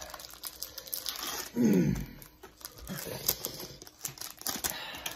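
Pokémon booster-pack wrappers and cards crinkling and rustling as they are handled, a steady run of small crackles and clicks. About one and a half seconds in, a short vocal sound falling in pitch is the loudest thing.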